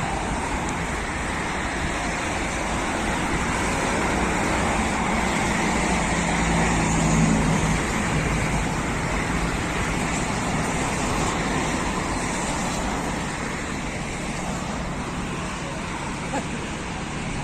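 Steady road traffic noise, with a vehicle engine passing about seven seconds in.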